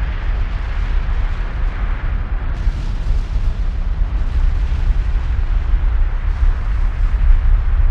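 Loud, continuous low rumble with a hiss above it, microphone buffeting noise, with no distinct events.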